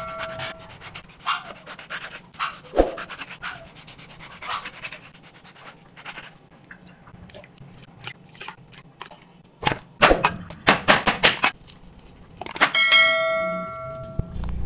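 A bell-like chime sound effect rings twice, at the start and again near the end, the usual ding of a subscribe-button animation. Between the two chimes come scattered taps of a knife on a plastic cutting board, and a cluster of louder knocks and clatters about ten seconds in.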